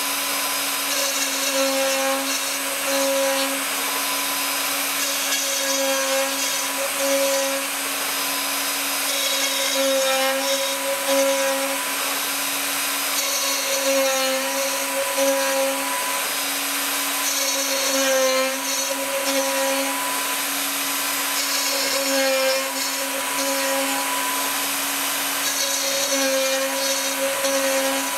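Cybermation Autograph Multicutter 8000 CNC router running: a steady spindle whine over a high hiss, with the sound changing in a repeating pattern about every four seconds as the machine works through its moves.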